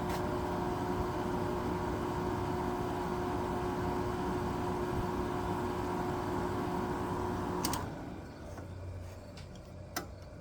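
A 1999 Whirlpool 5000 BTU window air conditioner with an LG rotary compressor running with a steady hum, then stopping abruptly about eight seconds in, leaving only a faint low hum. A single click comes near the end.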